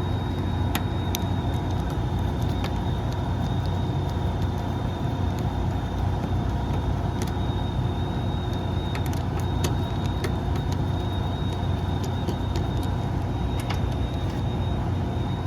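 Rooftop air-conditioning unit running steadily: a constant low hum from the compressor and condenser fan with a few fixed whining tones, and occasional light clicks from handling close by.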